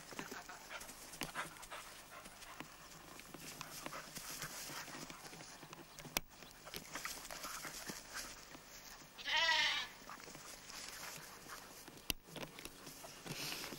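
A lamb bleats once about nine seconds in, a single quavering call of under a second. Around it are soft scuffling and rustling sounds and two sharp clicks.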